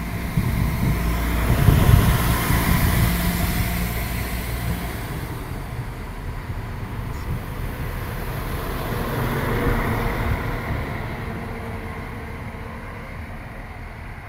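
Polish SA-series diesel railcar running past along the platform, engine and wheels on the rails rumbling. It swells about two seconds in and again around ten seconds, then fades as the train draws away.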